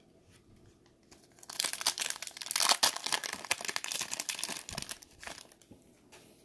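A trading-card pack's wrapper being torn open and crinkled by hand: a dense crackling that starts about a second and a half in and dies away a second before the end.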